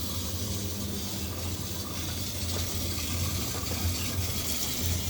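Washing up at a kitchen sink: a hiss of water with small rattling and scraping sounds over a steady low hum.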